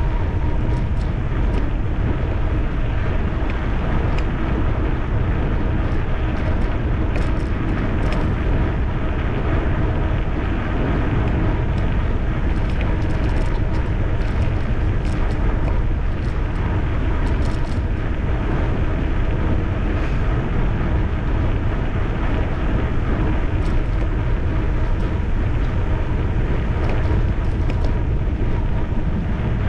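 Steady wind rumble on the microphone of a camera carried on an electric bicycle riding along a paved path, mixed with the bike's running noise.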